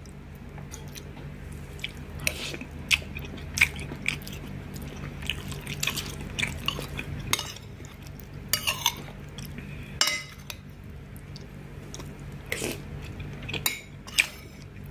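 A spoon clinking and scraping against a plate while scooping rice and broth: irregular sharp clinks, some louder than others.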